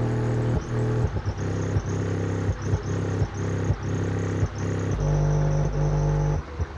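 Charles 12-inch single-voice-coil car subwoofer being test-played loud with deep bass notes. The notes come in a quick repeating pattern, about two a second, then one low note is held for about a second and a half near the end.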